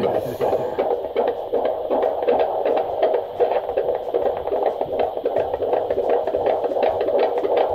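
Unborn baby's heartbeat picked up by a handheld fetal Doppler probe: a fast, even, whooshing pulse at about 144 beats a minute, a normal rate for a fetus.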